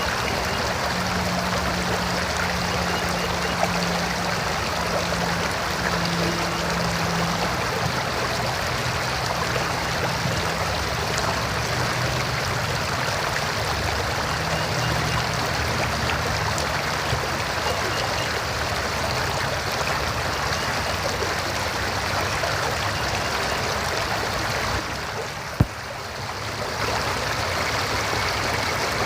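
River water rushing steadily over rocks. Near the end, the level dips briefly and there is one sharp click.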